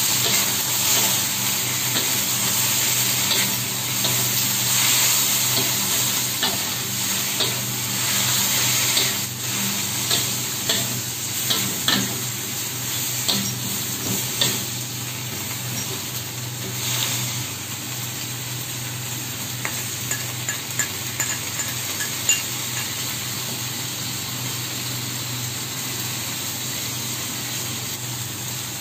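Shrimp and chilies sizzling in hot oil in a wok while a metal spatula stirs them, scraping and clacking against the pan. The clacks come thick in the first half and thin out later, when the sizzle also gets a little quieter.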